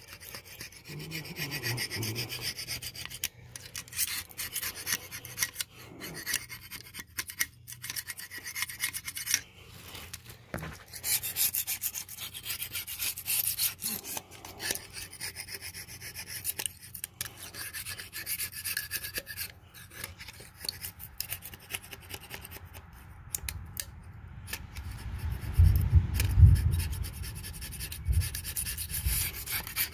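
Razor-blade scraper scraping old intake manifold gasket material off the intake face of a Mercruiser 350 V8's cylinder head, in quick irregular strokes. A low rumble near the end is the loudest moment.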